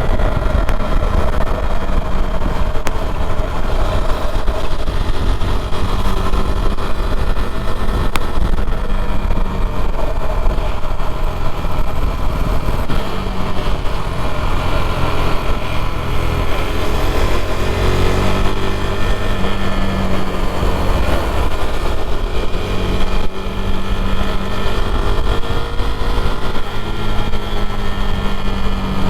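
KTM Duke 390's single-cylinder engine running while riding, its pitch rising and falling several times with throttle and gear changes.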